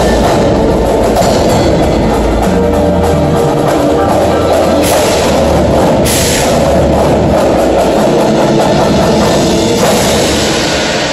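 Indoor percussion ensemble playing loud: marching snare, tenor and bass drums in a dense rhythm over the front ensemble's deep sustained bass notes. Two bright cymbal crashes ring out about five and six seconds in.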